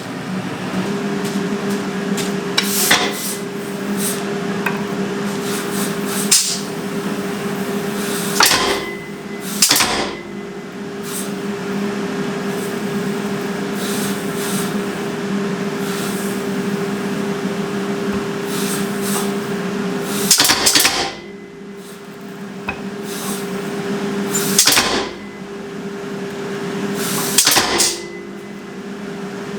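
Forge blower running with a steady hum, broken by a handful of sharp, widely spaced metallic knocks of steel on the anvil.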